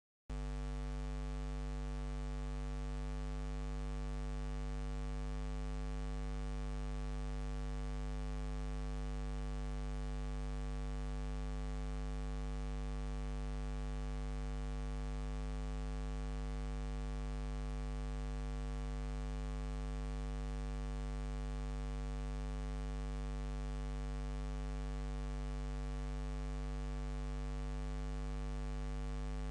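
Steady electrical mains hum: a low buzz with many even overtones over faint hiss, cutting in suddenly at the very start and holding unchanged.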